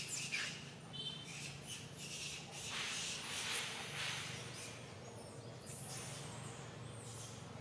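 A short high chirp about a second in, then scratchy rustling noises that are loudest around the middle, over a low steady hum.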